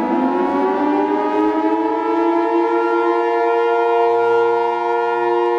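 Civil defense siren sounding several tones at once. The chord rises in pitch over the first two to three seconds, then holds steady.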